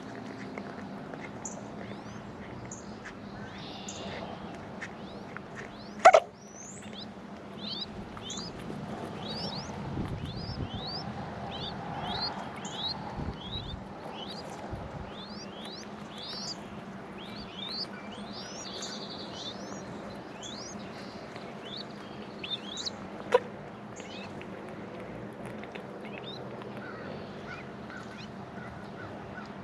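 Small birds chirping over and over in short, high, rising chirps, a few a second. Two sharp knocks cut in, the first about six seconds in and the loudest sound, the second, weaker, near the end.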